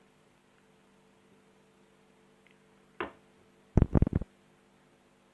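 A faint steady hum, broken by a single knock about three seconds in, then a quick run of four or five loud thumps just under a second later.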